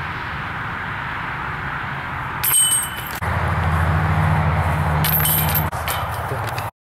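Chains of a disc golf basket clinking as a disc strikes them, a sharp ringing hit about two and a half seconds in and more clinks near the end. A low steady rumble runs between them, and the sound cuts off abruptly just before the end.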